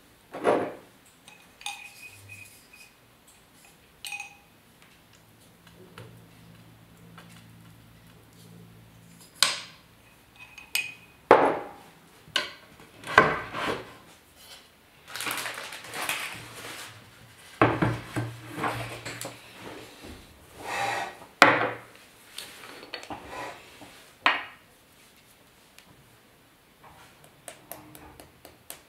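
Brushes, tools and small containers being picked up and set down on a work table: irregular clicks and knocks, with longer scraping or rustling stretches in the middle.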